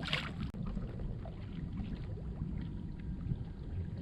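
Steady low rumble of wind and water noise on a kayak, with a few faint taps and knocks and a brief rushing burst at the very start.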